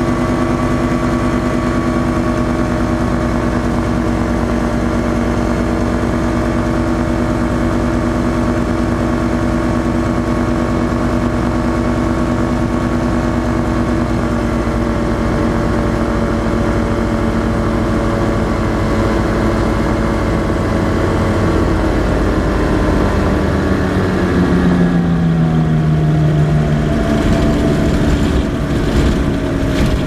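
Challenger ultralight's engine and propeller running steadily with wind rush. About two-thirds of the way through the engine is throttled back for landing and its pitch falls. A few knocks near the end as the wheels meet the grass strip.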